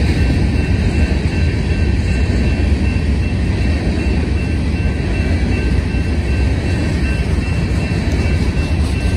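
Empty covered hopper cars of a freight train rolling past: a steady, loud rumble of steel wheels on rail, with a faint steady high ring above it.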